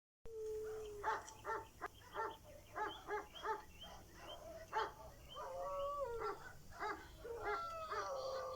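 A dog barking in short repeated barks, about two or three a second, between long whining howls that slide slowly down in pitch.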